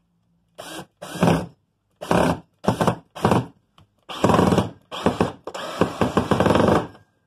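Handheld power drill driving a screw into a wooden board, in a string of short trigger bursts, with longer runs in the second half.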